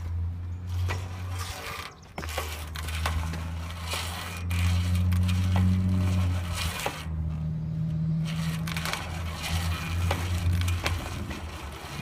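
A band sawmill's band wheel being turned by hand with the tensioned blade on it: a scraping, rattling noise with many sharp clicks, while the blade's tracking is checked after the wheels were aligned. A steady low hum runs underneath and drops out briefly twice.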